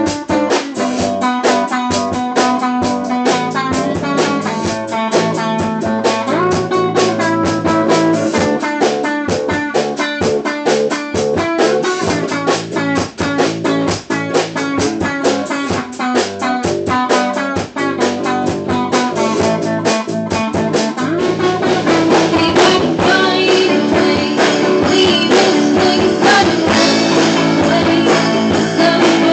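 Rock band playing: electric guitar carrying a melodic line over drums and bass guitar. About twenty seconds in, the band grows louder and fuller.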